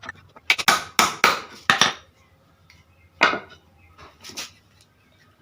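Hammer striking nails into timber pieces of a wooden frame: a quick run of sharp blows in the first two seconds, then two more single blows.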